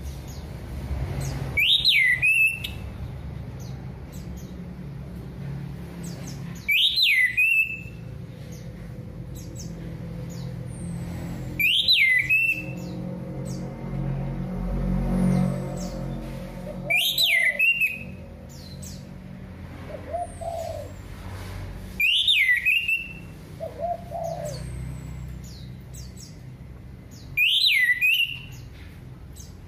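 Orange-headed thrush (anis merah) singing, repeating a loud whistled phrase about every five seconds, each phrase dropping then rising in pitch. Fainter high chirps and a few lower calls come between the phrases over a steady low hum.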